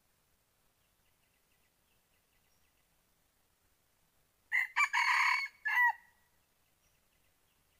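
A rooster crows once about halfway through: a short crow of about a second and a half, made of a few quick syllables and ending on a falling note. It is a decoy cock's crow, used as a lure call for trapping wild junglefowl. Faint bird or insect chirps carry on underneath.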